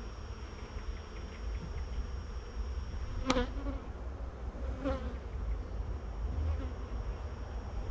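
Honeybees buzzing steadily around an open hive, with two brief, louder buzzes about three seconds in and again a second and a half later.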